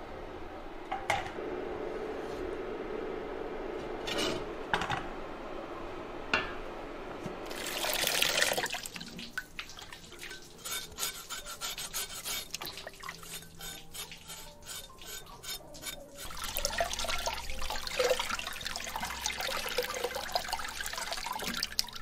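Boiled preserved pork (larou) being washed in a steel basin of water. Water sloshes and splashes, loudest about eight seconds in. Then a cleaver blade scrapes the rind clean in quick repeated strokes, and near the end there is more splashing as the meat is rinsed.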